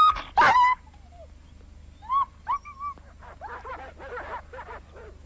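Dogs barking and yelping: two loud, short yelps at the start, then fainter barking further off, repeated through the second half.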